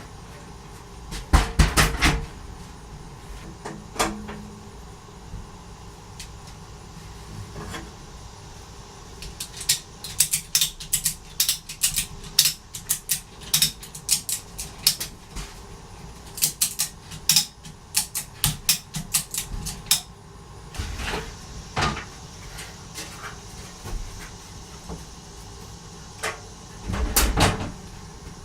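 Ratchet strap being cranked tight, its ratchet clicking in quick runs of sharp clicks, with a few heavy metal knocks before and after.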